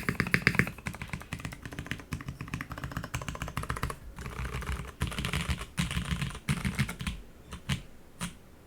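Rapid typing on a mechanical keyboard with Cherry MX Hyperglide Brown tactile switches, lubed and filmed, mounted on a full aluminum plate in a top-mount KAF910 case. The fast run of keystrokes thins to a few single presses near the end and then stops.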